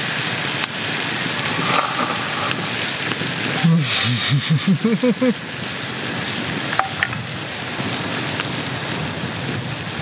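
Wood campfire crackling with a few sharp clicks over a steady rushing noise. About four seconds in, a man makes a quick run of five or six short voiced sounds, each rising in pitch, while eating.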